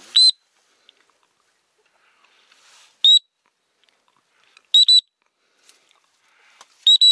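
Dog whistle blown in short, shrill blasts to signal a hunting dog out on a water retrieve: a single blast, another about three seconds later, then two quick double blasts.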